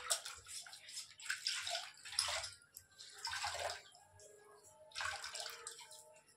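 Water splashing and trickling as a cloth is dipped and wrung out in a pot of water, coming in about five short swells.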